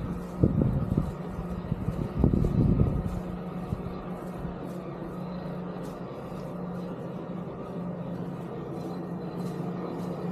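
Steady vehicle hum with a constant low drone, and a few brief louder bursts in the first three seconds.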